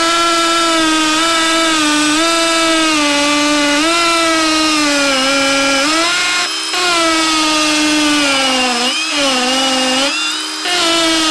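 Ryobi P251 brushless hammer drill in hammer mode at speed 2, boring into a concrete block: a loud, steady buzzing whine that sags in pitch as the bit bites and picks up again. It stops briefly about six and a half seconds in and again just after ten seconds, then carries on.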